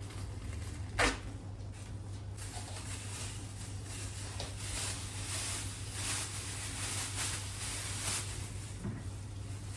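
Kitchen handling sounds: a sharp tap about a second in, then a run of soft brushing or scraping strokes over a low steady hum.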